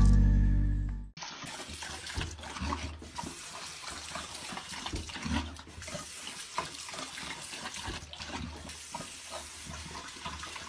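Running water, like a tap running into a sink, with small splashes and knocks through it. Music fades out in the first second.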